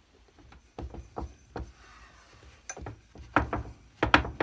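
Screw-down sole press being adjusted and tightened down on a boot: a run of sharp knocks and clicks, sparse at first, then louder and quicker from about three and a half seconds in.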